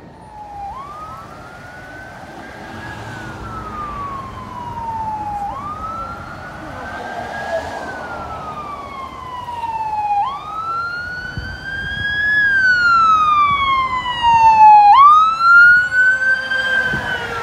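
Ambulance siren on wail. Each cycle climbs quickly and then falls slowly over about five seconds, and it gets louder as the ambulance approaches and passes close by.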